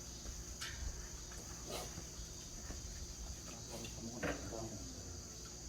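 Crickets chirring steadily in a high, even drone, with a few faint brief clinks or murmurs over it.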